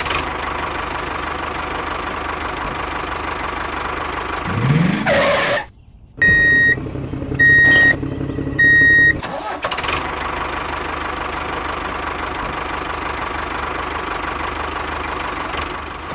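A small engine running steadily, rising in pitch as it revs about four and a half seconds in, then cutting off. Three electronic beeps follow about a second apart over a lower hum, and then the steady engine running resumes.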